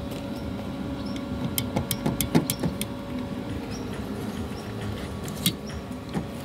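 Rear wiper arm and its plastic cover being handled: a quick run of sharp clicks and taps about two seconds in, then a single click a couple of seconds later.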